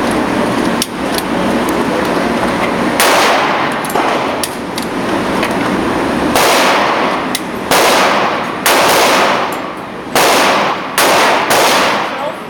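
Gunshots: after about three seconds, some seven sudden loud reports in quick, irregular succession, each with a ringing tail that fades over about a second.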